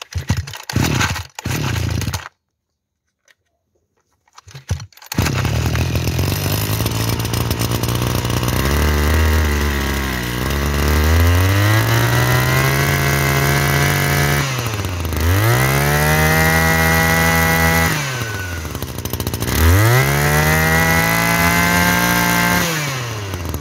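A two-stroke brush cutter engine of about 30cc is pull-started: a few short starter pulls, and it catches about five seconds in. It then runs and is revved up to high speed and back down to idle three times.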